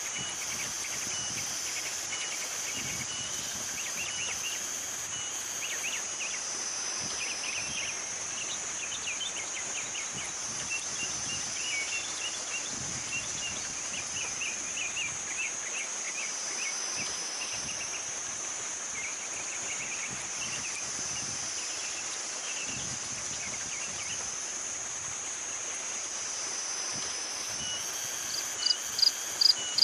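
Morning forest ambience: a steady high-pitched insect drone that slowly swells and fades, with scattered chirps and trills through the middle. Near the end a loud insect call starts up in rapid, regular pulses.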